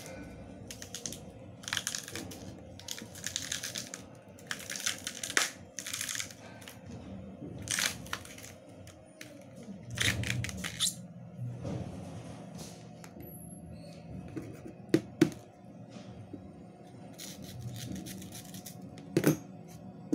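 Skin of a steamed green banana being torn and pulled off in strips by hand: repeated rustling, tearing strokes with a few sharp snaps in the second half, over quiet background music.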